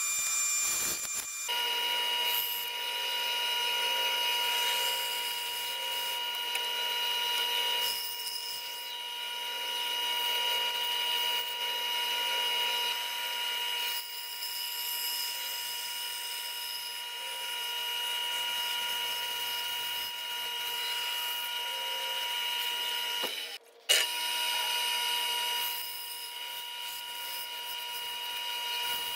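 Bandsaw running with a steady motor whine, its blade cutting through a thick wooden board with a light sawing hiss. About three-quarters of the way through the sound cuts out briefly, then a sharp click.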